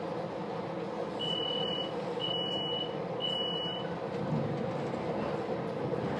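Three high beeps about a second apart from a train's door warning, over the steady hum of the stationary railcar.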